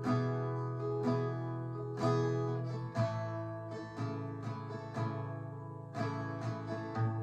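Guitar accompaniment playing sustained chords with no singing, a new strummed chord about once a second.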